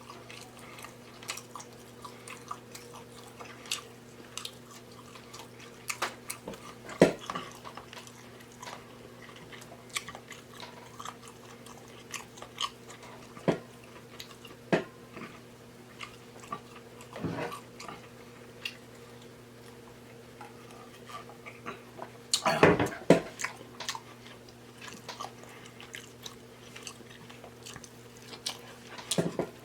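Close-miked eating of king crab legs: chewing and mouth smacking with scattered sharp clicks, and a few louder ones that stand out, one about seven seconds in and a cluster about two-thirds of the way through.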